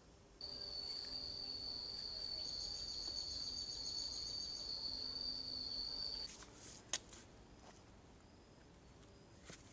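An insect calling one steady high-pitched note that starts suddenly about half a second in and stops about six seconds in, pulsing briefly in the middle. A single sharp knock follows about seven seconds in.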